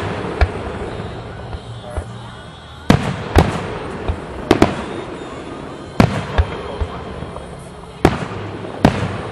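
Aerial fireworks shells bursting overhead: about nine sharp bangs, spaced from half a second to two seconds apart, some in quick pairs. Each bang trails off in a rolling echo.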